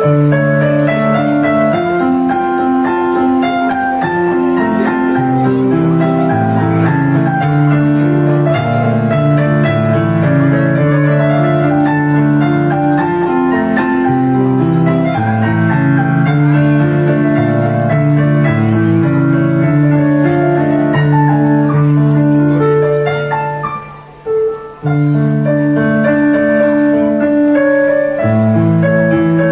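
Electronic keyboard playing a melody over held chords and a bass line, dropping out briefly about three-quarters of the way through before carrying on.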